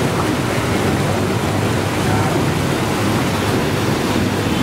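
Automatic gauze bandage bleaching machine running: a steady, even rushing noise with no distinct beats or tones.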